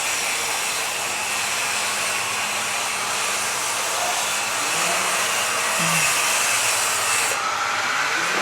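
Handheld electric power tool running steadily, grinding or polishing a marble edge.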